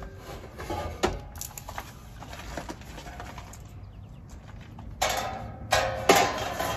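Sheet-metal electrical panel front cover being lifted off and handled: a few light metallic knocks and clicks about a second in, then two short scraping rustles near the end as it is set down.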